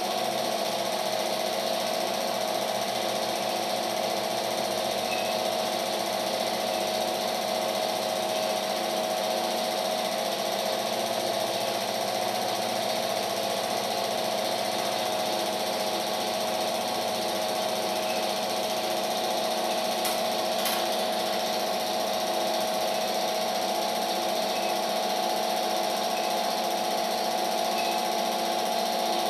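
Home-movie film projector running, a steady mechanical whir and hum that holds an even level throughout.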